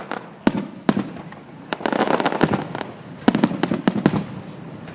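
Fireworks going off: two sharp bangs in the first second, then two spells of rapid crackling pops.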